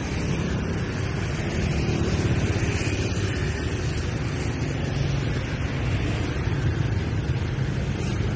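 Busy street traffic of motorbikes and scooters, their small engines running and passing close by in a steady low rumble.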